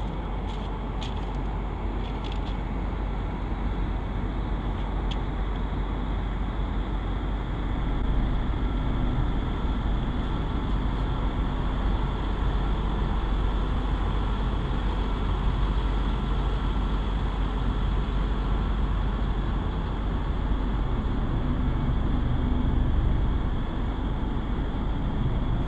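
Mobile crane's engine running steadily while it lowers a suspended load, a continuous low rumble with a faint steady whine above it. It grows slightly louder about eight seconds in.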